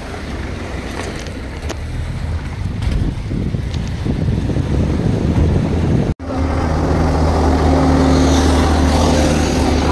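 Wind rushing on the microphone. After an abrupt cut about six seconds in, a road vehicle's engine runs steadily with a low hum.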